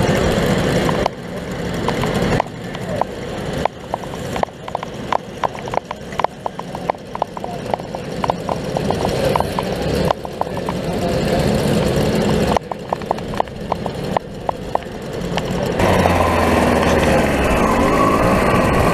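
Classic two-stroke mopeds idling, their engines firing unevenly with short popping ticks a few times a second. About three-quarters of the way through, the engines rise into a fuller, louder running sound as the riders pull away.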